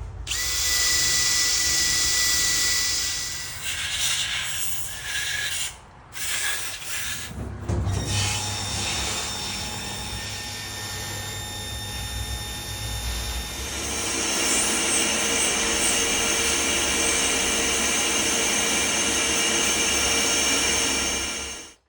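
Power tools running in a workshop, with a steady whine over grinding or cutting noise. The sound changes abruptly several times, as in a string of short clips, and cuts off suddenly at the end.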